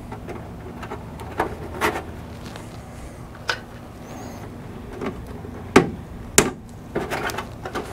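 Hands working wiring and a plastic zip tie against the underside of a car hood: a handful of separate sharp clicks and light knocks, the strongest a little before and after the six-second mark, then a quick run of small clicks near the end.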